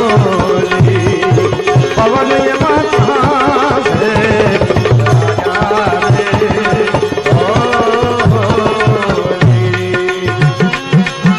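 Instrumental bhajan music: tabla plays a steady rhythm under a wavering melody line.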